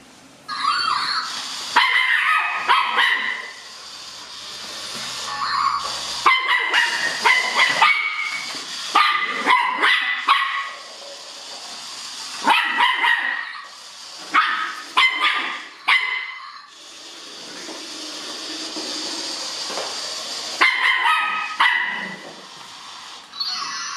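Puppy barking and yapping in short bursts of high, sharp barks, over and over, at a moving Zhu Zhu Pet toy hamster.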